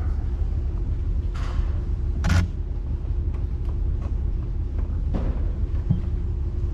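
Steady low rumble of background room noise with a few scattered knocks and clicks. The loudest, a sharp knock, comes about two and a half seconds in.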